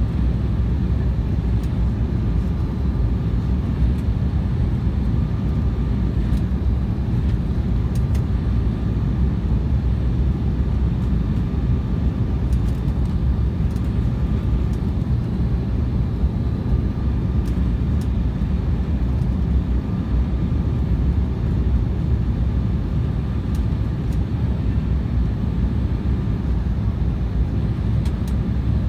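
Airliner cabin noise: a steady low rumble, with a faint high whine that comes and goes.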